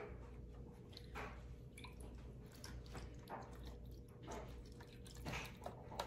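Coconut milk beverage poured from a small plastic bowl into a plastic Ninja blender jar, a faint trickling splash onto the riced cauliflower in the second half, with a few light ticks of bowl handling near the end.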